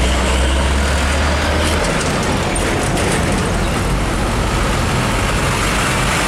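Diesel trucks passing close by: a Hino 500 box truck goes past with a low engine drone that fades about two seconds in, then a smaller light truck approaches over steady road traffic noise.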